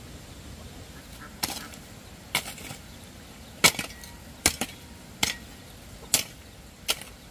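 A hand tool striking repeatedly: about eight sharp chopping knocks, roughly one a second, starting about a second and a half in.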